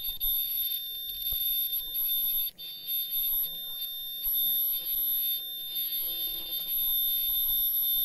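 Disposable mask-making machine running with a high-pitched whine that cuts in and out every second or so, over a faint low mechanical hum.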